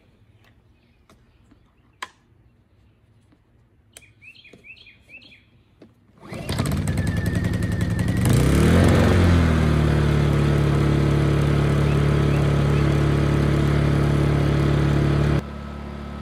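Birds chirp over quiet surroundings. About six seconds in, a Honda EU2000i inverter generator's engine starts; its pitch climbs and then settles into steady running. Near the end the sound drops abruptly to a quieter steady hum.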